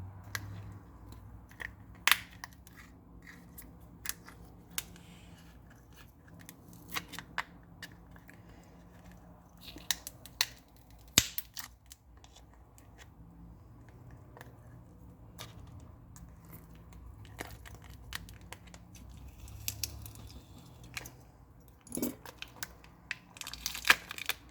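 Scattered small clicks, taps and scrapes of hand tools on a Samsung Galaxy S20 FE's internals as its glued-in battery is pried and peeled out, over a faint low hum.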